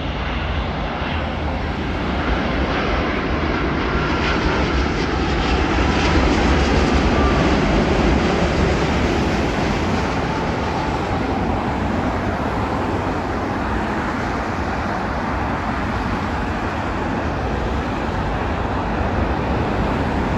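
Twin-engine widebody jet airliner on its landing pass: a steady engine rumble and whine that swells to its loudest about a third of the way in, then eases off.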